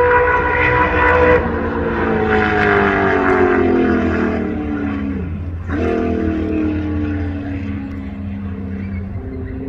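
Ford 289 Windsor V8 of a 1966 Mustang race car, open through twin megaphone exhausts, running hard at high revs. A high steady note falls away over a few seconds, dips sharply about five and a half seconds in, then climbs back up and slowly falls again, over a steady low rumble.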